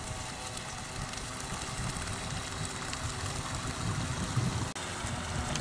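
Mini Wildcat radio-controlled boat running on a lake, a steady motor sound over low outdoor rumble. The sound drops out for an instant near the end.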